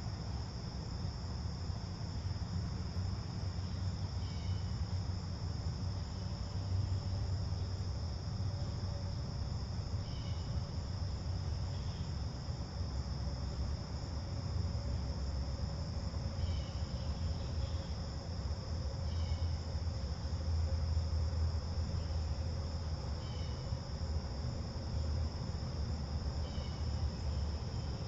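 A steady chorus of crickets trilling, over a low rumble, with short high chirps every couple of seconds.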